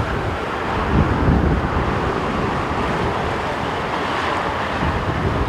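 Steady jet roar of a Boeing 777-300ER's GE90 engines as the airliner flares and touches down on landing, mixed with low gusts of crosswind buffeting the microphone, one about a second in.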